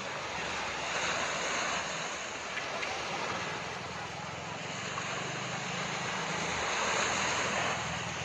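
Wind buffeting the microphone over a steady rush of water and a low drone, swelling and easing in gusts.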